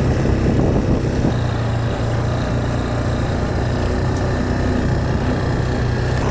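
Quad bike engine running steadily.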